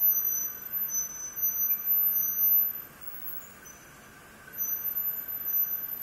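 Circular looms and yarn creels running in a woven plastic sack factory: a steady machine hum, with a high, thin ringing tone laid over it for about the first three seconds and again from about four and a half seconds on.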